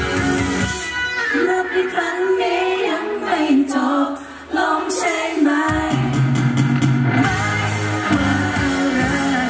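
Live pop band playing with a male lead singer singing a slow melody. The low end of the band drops away about a second in, leaving the voice over lighter backing, and the full band comes back in about six seconds in.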